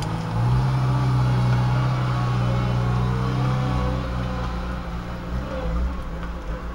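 An engine running close by with a steady low drone, the racket that is being complained about. It gets louder about half a second in and eases off a little after about four seconds.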